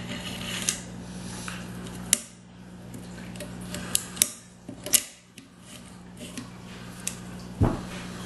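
Metal clicks and scrapes of a Mossberg 352KA .22 rifle's bolt assembly being worked into place in the receiver during reassembly: about six sharp clicks at uneven intervals, with a steady low hum underneath.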